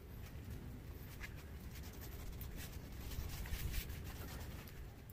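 A cloth rag rubbing and wiping over a black barbell weight plate, cleaning it with paint thinner, in repeated scratchy strokes.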